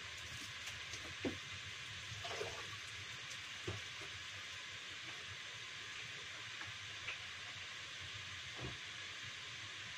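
A few light knocks and clatters of items being handled at a kitchen sink, over a steady hiss.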